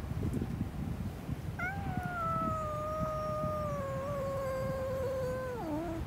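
Japanese raccoon dog (tanuki) giving one long, high whining cry that slowly falls in pitch and drops sharply at its end. It is the cry the animal makes when embarrassed, after missing its footing.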